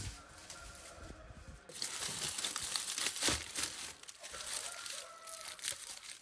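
Dry cotton stalks crackling and rustling as they are pushed by hand into the mouth of a clay tandoor, a dense run of small snaps and twig scrapes that grows louder about a second and a half in.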